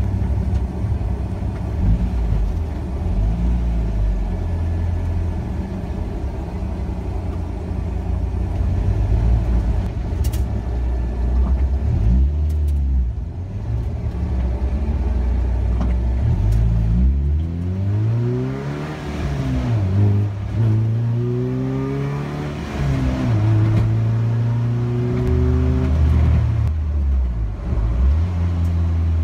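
Car engine heard from inside the cabin, running low and steady at first, then accelerating in the second half: the engine note rises twice, with a gear change between, before it settles at a steady cruise.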